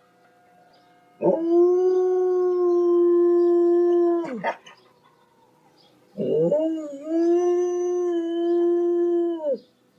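A dog howling: two long howls of about three seconds each, held on one steady pitch and dropping away at the end, the first followed by a brief rough cry.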